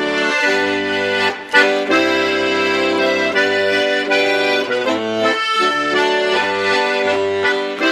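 Accordion music: a melody over held chords, with a bass part coming and going underneath.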